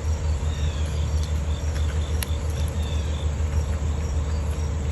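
A steady low hum, with the short, repeated high chirping of insects over it and one light click about two seconds in.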